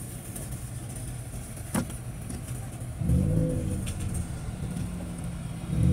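Car engine running, revving up about three seconds in and again near the end, with a sharp click just before two seconds.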